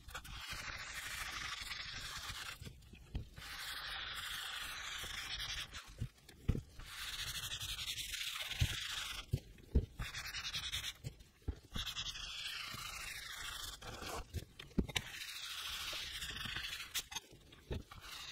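Small applicator pad rubbing neat's foot oil into a sheet of vegetable-tanned leather, a soft scrubbing hiss in long strokes of a second or two with short pauses between. A few small knocks come in between the strokes.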